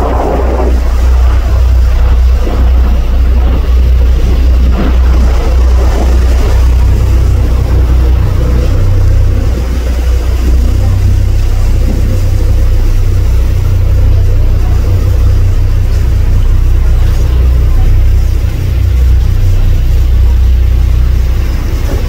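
Sightseeing cruise boat's engine running underway: a steady, loud low rumble.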